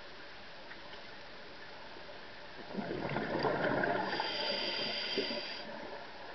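Scuba regulator exhalation: a loud rush of bubbles for about three seconds from near the middle, after a steady low hiss.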